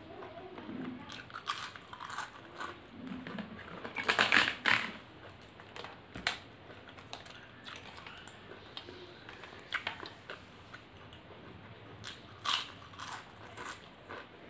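A person eating by hand, with close-up chewing and mouth sounds and sharp crisp crunches, the loudest cluster about four seconds in and a few more near the end. The crunches come from papad being broken and bitten, with fingers mixing rice and curry on a steel plate.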